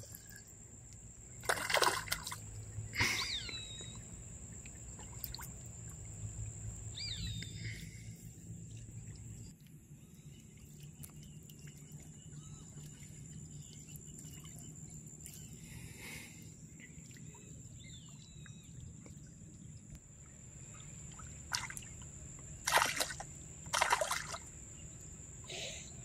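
Streamside ambience: water trickling and a steady high-pitched insect trill, with a few short bird chirps. Two short, louder noises stand out near the end.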